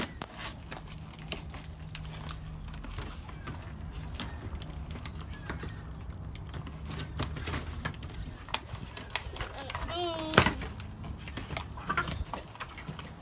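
Plastic and cardboard toy packaging being handled and pulled at: a run of irregular clicks, taps and crinkles, with one sharp snap about ten seconds in.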